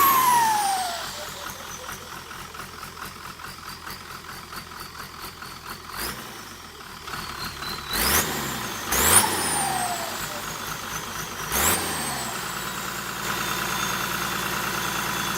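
AR42 turbocharger on a six-wheel tractor's diesel engine: the engine is blipped four times, and after each blip the turbo whistle jumps up and then glides down as the turbo spools down. Near the end the engine settles to a steady idle with a constant faint whistle.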